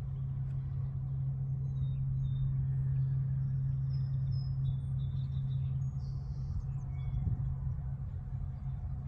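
Steady low engine drone, with a few faint high bird chirps over it.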